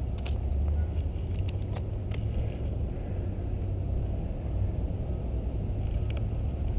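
A steady low rumble, with a few light clicks in the first two seconds and again near the end.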